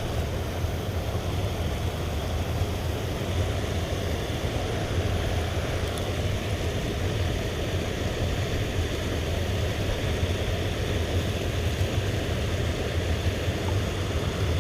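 Steady rushing of river water pouring over a concrete waterfall, a constant low rumble with a hiss above it.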